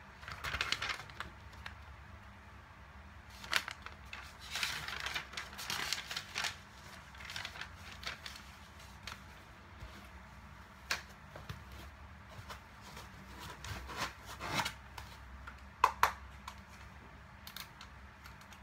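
Paper rustling and crinkling as instruction sheets are handled and put aside, with scattered light clicks and knocks from handling the box contents. Near the end come two sharp clicks as a plastic rifle magazine is handled.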